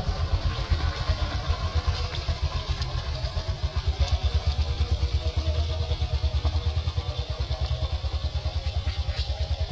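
A small engine idling, with a steady, evenly repeating low pulse.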